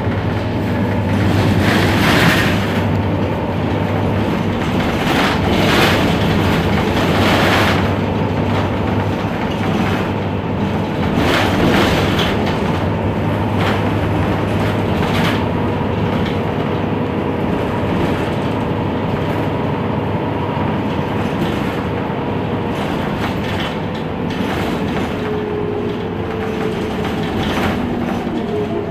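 Heuliez GX 327 city bus under way: engine and drivetrain running with a steady low hum and a held whine that slides in pitch near the end. Occasional knocks and rattles sound through it.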